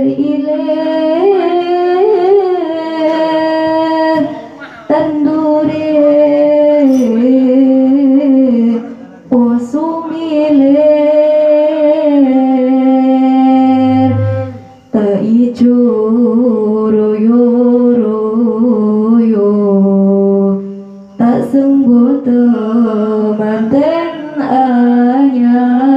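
A woman singing sholawat, an Islamic devotional song, into a microphone: long held notes with ornamented turns, in phrases of a few seconds with short pauses between them.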